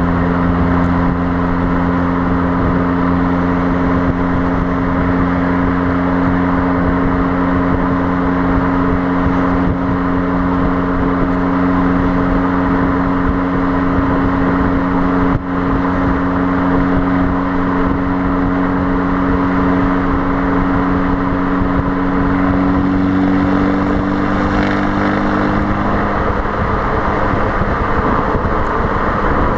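Fiat Abarth 595's 1.4-litre turbocharged four-cylinder at a steady motorway cruise, its exhaust note a constant drone that creeps slightly higher in pitch, mixed with wind noise on the number-plate-mounted microphone. Near the end the engine note drops away, leaving road and wind noise.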